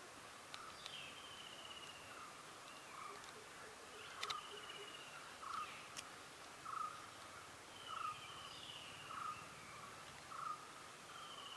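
Faint background birdsong: a bird repeats a short note about once every second or so, with a higher, buzzy descending trill every few seconds. A couple of faint sharp clicks sound near the middle.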